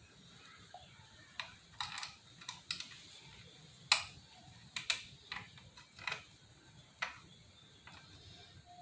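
Irregular light clicks and taps of small metal parts and pliers being handled while the rear brake master cylinder's pushrod linkage is refitted by hand, with one louder click about four seconds in.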